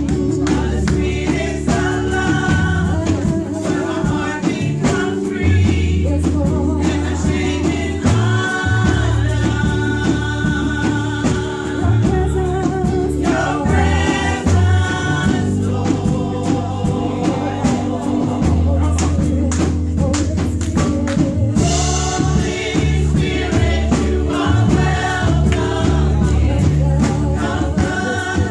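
A women's gospel vocal group singing together into microphones, over a deep bass line and percussion.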